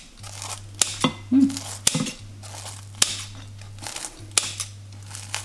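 Knife cutting through a fried pempek fish cake held over a ceramic bowl, with several sharp clicks from the knife and the cut pieces knocking against the bowl, over a steady low hum.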